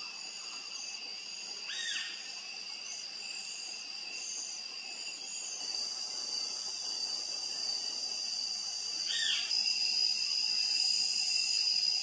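Forest ambience: a steady high-pitched drone in several tones, with short bird chirps and two rising-and-falling calls about seven seconds apart. The drone steps up in level about two-thirds of the way through.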